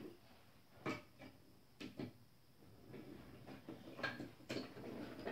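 A few light clicks and knocks of toy pieces being handled on a wooden train-set table, spaced a second or two apart, with quiet room tone between them.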